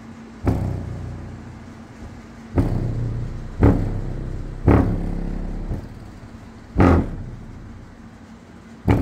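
Deaf Bonce DBSA 2508 8-inch subwoofer playing free-air, with no enclosure, pushing out deep bass hits from a bass test track. There are six hard hits, each fading over about a second.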